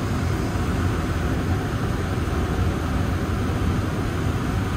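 Steady rushing noise from a kitchen gas stove at work: an even hiss over a low rumble, without the crackle of frying.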